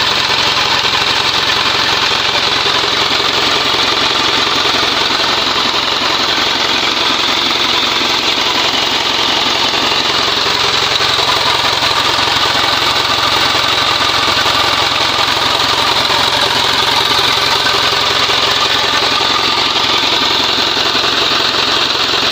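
Isuzu 4HF1 four-cylinder diesel engine idling steadily. The engine has heavy blow-by from worn piston rings with too large a gap.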